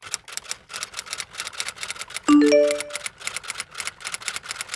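Intro sound effect: a fast run of dry clicks, about five or six a second, like typewriter keys, with a short rising chime of three notes about halfway through, the loudest moment.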